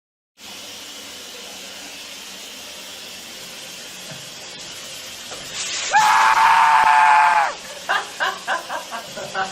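Steady hiss, then a person screams about six seconds in, one high held cry lasting about a second and a half, followed by a quick run of short vocal bursts.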